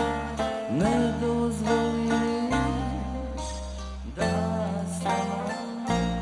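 Live tamburica band music: plucked tamburicas and guitar over a steady bass, with a held vocal line that slides up about a second in.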